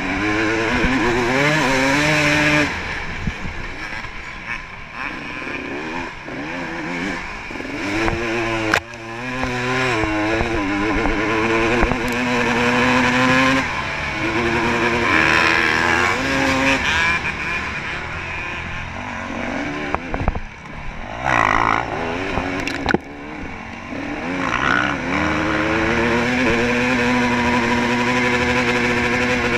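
Dirt bike engine heard from the rider's helmet, revving up through the gears and backing off again and again as it races over rough ground, with wind rushing over the microphone and a few sharp knocks from the bumps.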